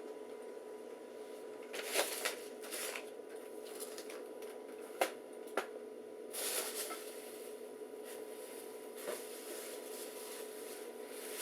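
Vintage laptop's floppy drive seeking and reading in irregular scratchy bursts and clicks, over a steady electrical hum from the running machine; the failing boot is put down to a bad diagnostics disk.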